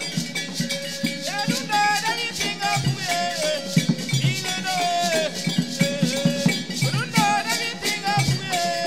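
A choir singing in Mooré over a steady rhythm of shakers and rattles, with low drum beats throughout.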